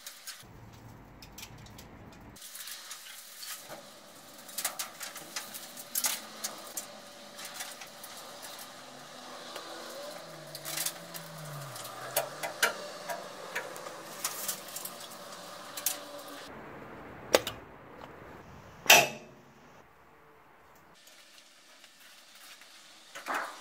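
Scattered metal clanks and knocks from a steel roll-over jig and a Mk1 Volkswagen Golf body shell as the shell is turned over on it. Two loud sharp bangs come about three quarters of the way through.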